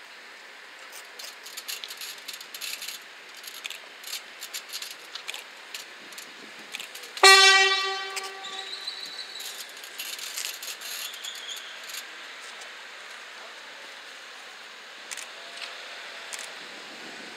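Horn of an NS DM '90 diesel multiple unit, one short blast a little after seven seconds in that fades over about a second, sounded while the train is stopped. Scattered faint clicks come and go before and after it.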